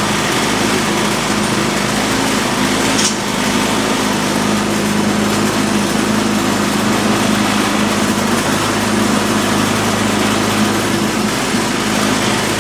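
Craftsman Quiet Series snowblower's small four-stroke engine running steadily at speed on its test run after a carburetor and fuel system overhaul.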